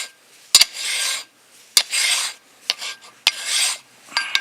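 Hand file rasping rust off the brake caliper bracket's pad contact areas, so the pads can slide freely: about four strokes roughly a second apart, each starting with a metallic click.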